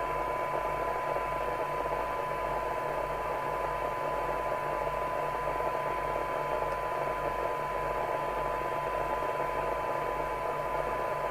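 Harrier CBX FM CB radio's loudspeaker giving out a steady 1 kHz test tone half buried in loud receiver hiss: a weak signal-generator signal being received during receiver alignment. A low hum pulses about twice a second underneath.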